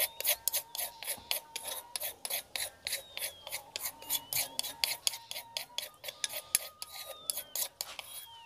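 Metal spoon scraping tapioca flour off a plate into a steel bowl, in quick, even strokes of about four a second.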